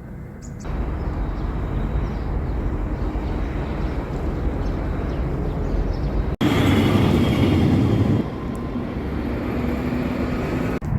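Steady outdoor rumble of vehicle noise, cut abruptly between several clips: about half a second in, about six seconds in, and near the end.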